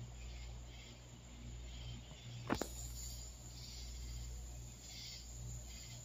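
Night insect chorus of crickets and similar insects, a rhythmic pulsing trill, over a steady low hum. One sharp knock comes about two and a half seconds in.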